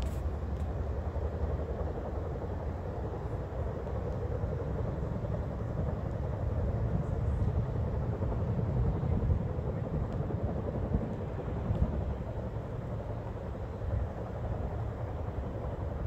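Chinook tandem-rotor helicopter running overhead: a steady low rotor drone that swells a little in the middle.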